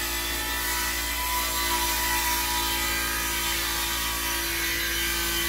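Steady hiss of auto-shop equipment running, with a low hum underneath.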